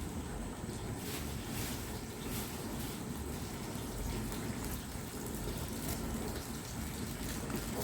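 A pot of rummaniyya, a pomegranate-juice stew thickened with flour, bubbling on the stove as it comes to the boil, with scattered faint pops over a steady hiss.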